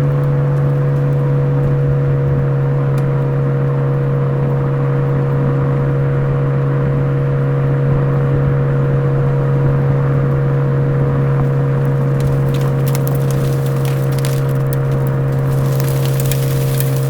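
Suzuki Swift Sport ZC33S's 1.4-litre turbo four-cylinder running through a Fujitsubo aftermarket exhaust at a steady engine speed: a steady drone with no change in pitch. Light crackling joins it near the end.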